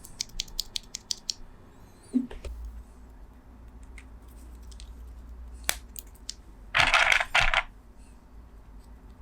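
Small hard plastic clicks and taps from handling and assembling mechanical keyboard switches: a quick run of clicks at the start, scattered single clicks, and a short louder rattle about seven seconds in.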